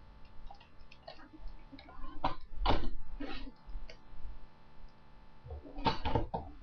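Orange and yellow plastic parts of a Nerf blaster being handled in a cardboard box: scattered light clicks and taps, with a few short, louder knocks and rustles about two to three seconds in and again near the end.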